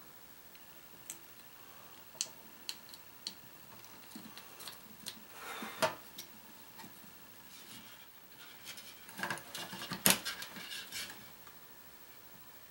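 Small irregular clicks and taps of handling a circuit board and bending a film capacitor's wire leads, with a louder run of clicks about nine to eleven seconds in.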